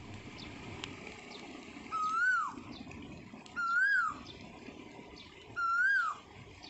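A bird calling three times, about two seconds apart: each call a single clear note of about half a second that rises and then drops away. Faint crackling from a small stick fire lies underneath.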